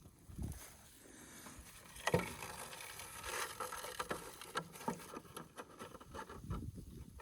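Rustling and light handling noises with scattered clicks, and one sharp knock about two seconds in.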